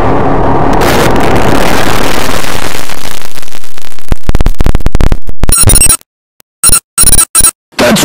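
Very loud, distorted meme sound effect: a harsh wash of noise that breaks into rapid stuttering chops about four seconds in, then cuts in and out with short silences near the end.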